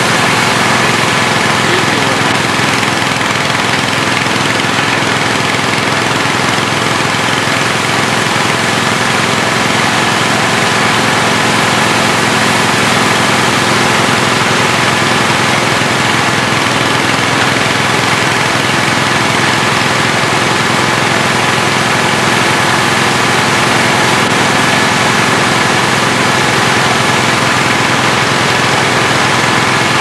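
Walk-behind snowblower's small gasoline engine running steadily while its impeller throws grain out of the chute in a continuous rush.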